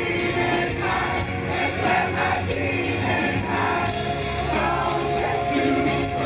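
Live rock band playing at a concert, with a male lead vocal sung into a microphone over the band, recorded from within the audience.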